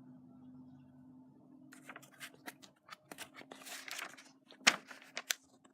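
Paper handling: crinkling and rustling with a run of sharp clicks, starting about a second and a half in, over a faint steady low hum.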